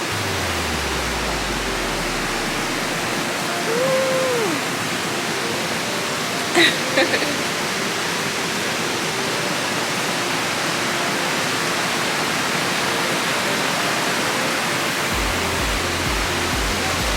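Steady rush of a creek waterfall, with a short rising-and-falling tone about four seconds in and a few sharp clicks near seven seconds.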